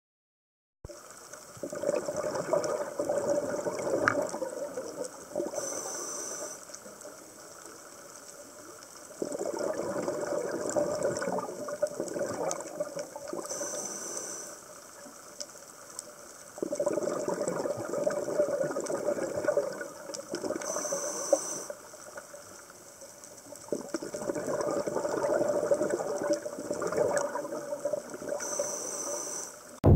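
Scuba diver breathing through a regulator underwater. Exhaled bubbles gurgle out in long bursts about every seven to eight seconds, with a short hiss between them.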